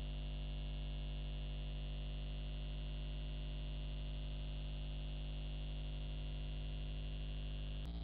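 A steady electronic hum of many held tones. It clicks and shifts to a different set of tones near the end.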